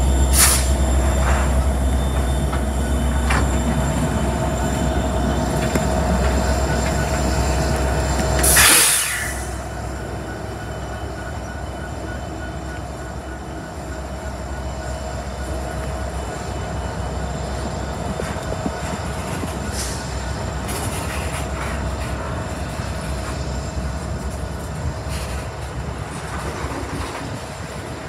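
A slow freight train's diesel locomotives passing under power: a deep engine rumble with a steady tone over it. About nine seconds in there is a brief loud rush of noise, and the rumble drops away. After that, covered hopper cars roll by with faint wheel squeal.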